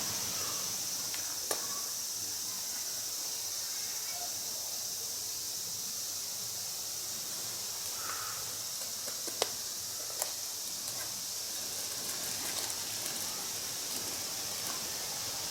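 Steady high-pitched chirring of insects, with a few sharp clicks about a second and a half in and twice more near the middle.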